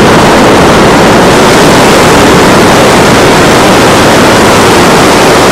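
Loud, steady rushing noise of ocean surf and wind on the camcorder microphone, even and unbroken.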